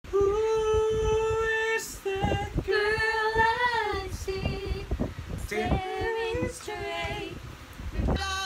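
Unaccompanied singing: held, sustained notes in several short phrases, one of them wavering about three seconds in, with a few low thumps underneath.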